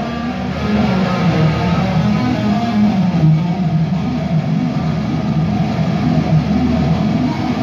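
A rock band playing live on stage: electric guitars over drums and keyboards, heard through the studio hall.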